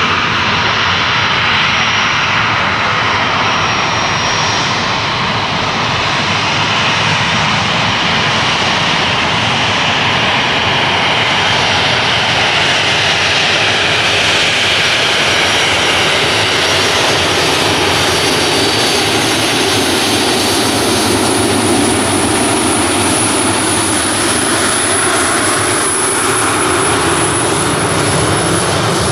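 Jet engines of a Boeing 737 Classic freighter running steadily at taxi power as the aircraft taxis past, a continuous rushing rumble with a thin high whine. The whine grows stronger about halfway through, and the lower part of the sound swells near the end as the aircraft turns away.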